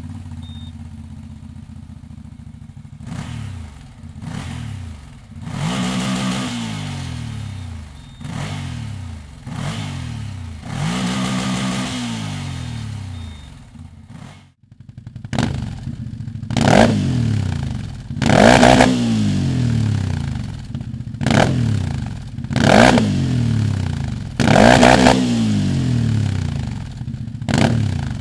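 CFMoto CForce 1000 ATV's V-twin engine idling and blipped repeatedly, each rev rising in pitch and falling back to idle. A cut about 14 seconds in separates two recordings with different exhausts, stock and a Dominator aftermarket silencer. The second part has quicker, louder rev blips.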